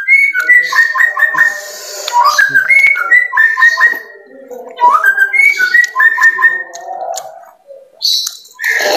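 A bird singing a phrase of quick whistled notes with sharp jumps in pitch. The phrase comes twice, with a pause of under a second between.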